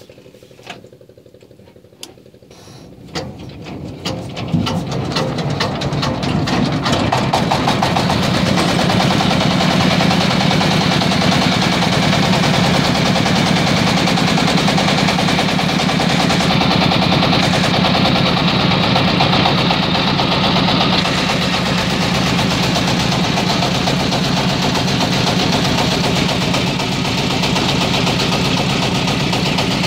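A wooden boat's engine starting: a few separate knocks, then it catches about three seconds in and builds within a couple of seconds to a loud, steady run that lasts to the end.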